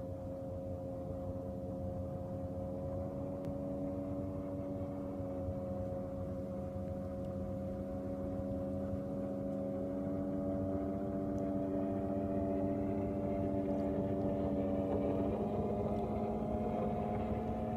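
Distant outboard speedboat with a 1995 Yamaha V-Max two-stroke engine running hard on the approach for a flyby. It makes a steady engine drone that grows slowly louder as it closes in, and about fifteen seconds in the tone steps up slightly.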